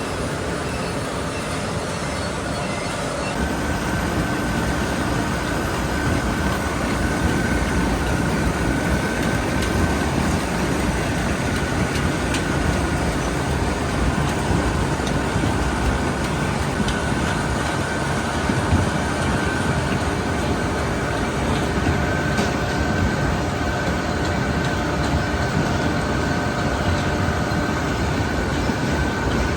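Grimme potato harvester at work lifting potatoes, heard from the cab: a steady engine and machinery rumble with a continuous rattle, and a steady high whine joining in a few seconds in.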